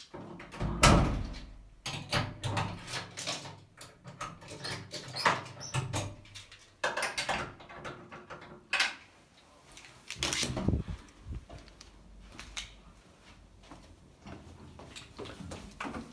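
A heavy wooden door with a push plate being pushed open and swinging back, with a run of knocks, clunks and rustles from handling; the two loudest thumps come about a second in and about ten seconds in.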